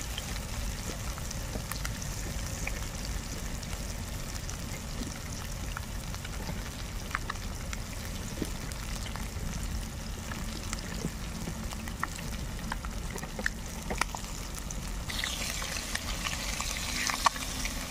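Fish pieces frying in hot oil in a steel bowl over a wood fire: a steady sizzle with scattered small pops. About fifteen seconds in, the sizzle grows louder and brighter as a metal spatula turns the pieces.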